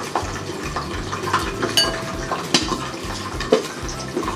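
Metal spoon clinking against a glass mixing bowl and a glass honey jar as honey is spooned out: a few sharp clinks, one of them ringing briefly about two seconds in.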